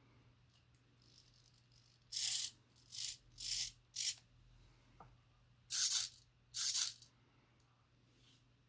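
Hard plastic parts of a 3D-printed launcher being handled and fitted together: six short scraping rattles, four in quick succession, then a faint click and two louder ones.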